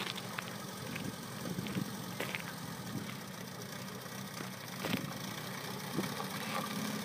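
1971 Mercedes-Benz W115 220's four-cylinder engine running at low revs as the car rolls slowly, with irregular crunching clicks from the tyres on gravel.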